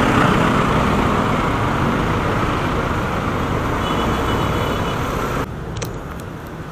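Motorcycle riding noise, engine and wind rush on the camera mic, that drops off suddenly about five and a half seconds in as the bike stops. A few light clicks and rustles follow near the end.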